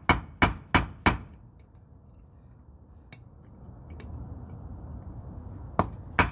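Mallet blows on a steel socket, driving a wheel bearing's outer race down into a steering knuckle on a wooden block. Four quick sharp strikes, about three a second, then a pause with a couple of faint clicks, and two more strikes near the end.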